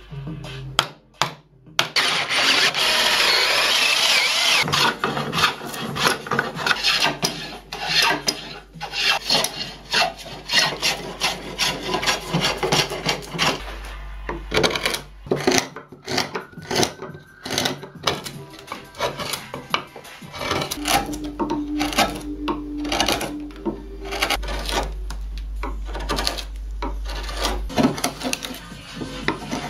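Hand carving gouge cutting into white oak: a long run of short scraping, paring strokes as shavings are taken off, thickest for a few seconds near the start.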